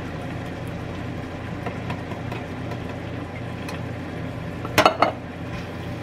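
Stirring diced tomatoes and green chilies into sautéing onions in an Instant Pot's inner pot with a utensil, faint scraping and ticks over a steady low hum. A sharp double knock of hard kitchenware about five seconds in.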